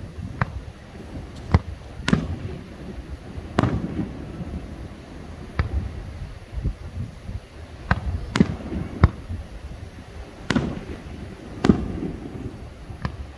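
Fireworks shells bursting overhead: about a dozen sharp bangs at irregular intervals, each trailed by a low rumbling echo.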